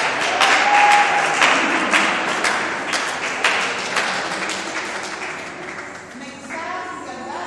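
Audience applauding, many sharp claps that slowly die away, with a voice calling out in a long held note near the start.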